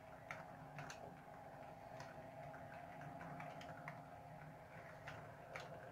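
Hornby Class 800 OO gauge model train running past, faint: a steady low motor hum with a few irregular clicks of its wheels over the track.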